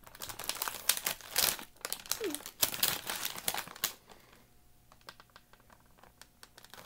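Crinkling plastic wrapping of an Oreo cookie pack being handled and opened, busiest in the first four seconds and then softer.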